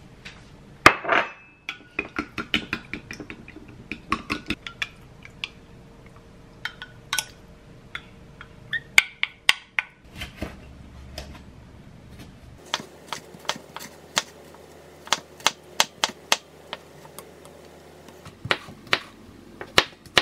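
Eggs being beaten with a wooden spoon in a glass mug, the spoon clinking against the glass in quick runs. About halfway through, a kitchen knife slices and then dices a red bell pepper on a wooden cutting board, knocking on the board about twice a second.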